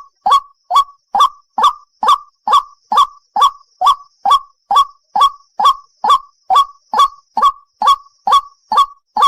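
A single white-breasted waterhen calling: short, harsh notes repeated evenly, a little over twice a second.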